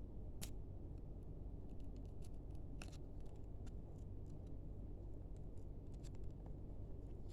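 Scattered small clicks and crinkles from a trading card pack and its cards being handled, over a steady low hum.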